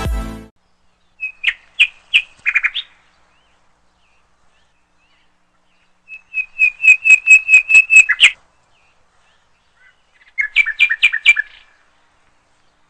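A small bird singing: three phrases of quick repeated chirps, each one to two seconds long, several seconds apart.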